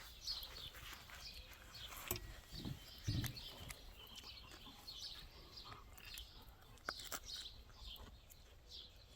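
Faint songbirds chirping: a run of short, high, falling chirps repeated every half second or so, with a couple of faint low thuds about two and three seconds in.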